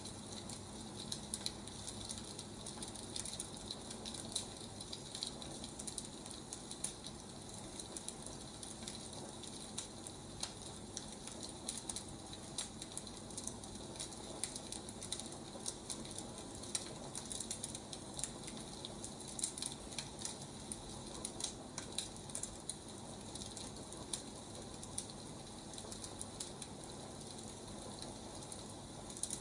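Burning firewood crackling, with irregular small pops and snaps over a steady hiss.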